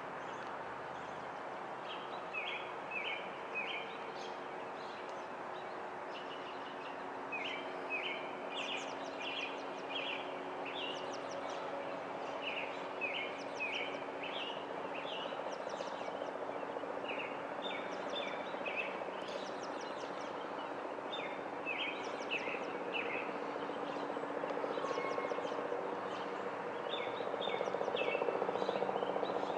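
Small songbirds chirping in quick runs of three or four short notes, repeated again and again, over a steady low background hum that grows a little louder near the end.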